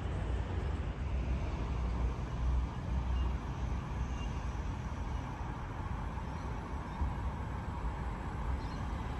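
Wind gusting on the microphone over a faint, steady rumble of an electric intercity train still far off down the line, growing slightly louder near the end.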